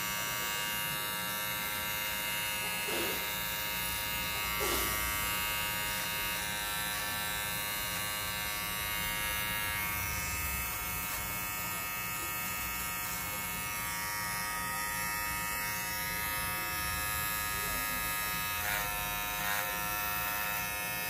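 Cordless T-blade hair trimmer running with a steady buzz as it trims and edges hair around the ear, with a few faint ticks.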